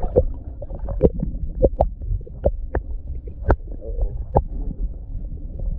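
Muffled underwater sound through a submerged camera: a steady low rumble with about ten sharp, irregular clicks and knocks.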